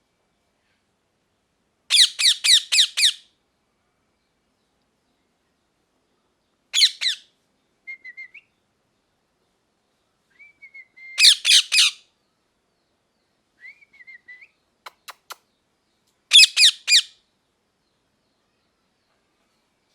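Parrot calling in four bursts of loud, harsh squawks, each a quick run of several notes lasting about a second, with soft short whistles in the gaps between them. There are a few faint sharp clicks shortly before the last burst.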